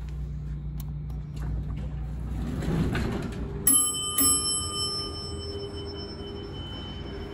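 Mechanical elevator chime of an original Armor traction elevator struck twice, about half a second apart, each stroke ringing on like a bell. Two strokes is the usual signal for a car going down.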